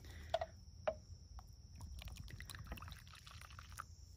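Beer poured from an aluminium can into a plastic tub, splashing and fizzing into foam as it fills, with a couple of sharp clicks in the first second; a low rumble runs underneath.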